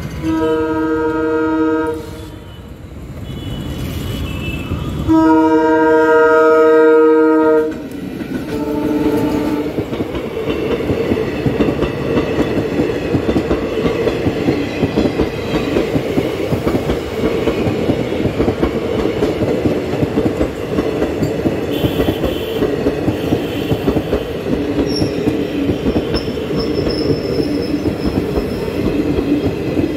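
Indian Railways train's multi-tone air horn sounding two long blasts and then a shorter, weaker third. Passenger coaches then roll past with a steady rumble and rhythmic clickety-clack of wheels over the rail joints.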